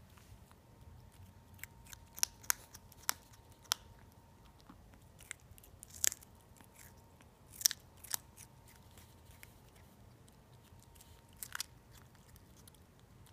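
An 8-week-old Bengal kitten biting and chewing a slice of fresh cucumber: irregular crisp, wet crunches, some in quick pairs or small clusters, with pauses between bites.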